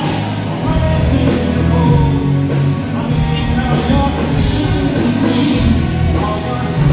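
Rock band playing live and loud, with electric guitars, drums and a lead singer, heard from within the concert crowd.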